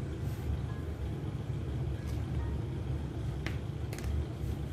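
Steady low background rumble, with a couple of faint light taps near the end as grated coconut is spooned into a steel mixer jar.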